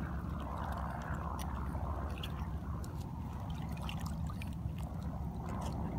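Shallow water sloshing and trickling at the edge of a sandy shore, with soft swells of water noise over a steady low rumble.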